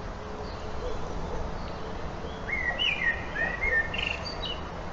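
Ambient forest soundtrack of wind and birdsong played back through a TOZO PE1 SoundGo Bluetooth speaker: a steady wind hiss, with a short run of bird chirps and whistles about halfway through.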